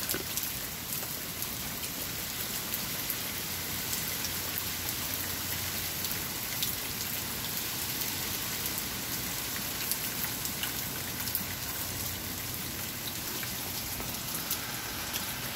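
Hurricane rain falling steadily: a constant hiss with many close drops ticking on nearby surfaces.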